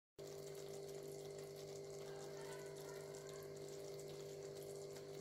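Faint sound of egg curry simmering in a pan on a gas stove: a soft, steady hiss with a fine crackle over a steady low hum. It begins abruptly.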